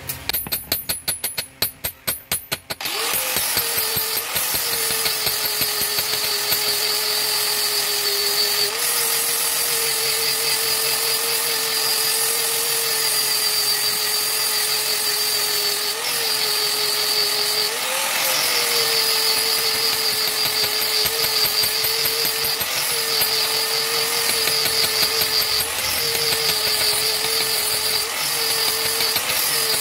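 Handheld angle grinder grinding the steel edge of a khara (sacrificial chopper), sharpening it. A quick run of sharp taps comes first; about three seconds in the grinder starts, and it runs with a steady high whine whose pitch wavers as the disc is pressed to the blade.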